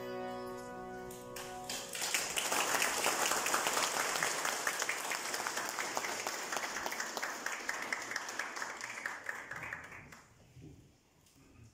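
A zither (citera) ensemble's final chord ringing out for a couple of seconds, then audience applause that fades out about ten seconds in.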